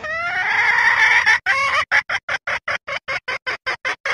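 Female junglefowl lure call: one long drawn-out call, then a fast run of short clucks at about five a second. It is the hen's mating call, used to draw cock birds in.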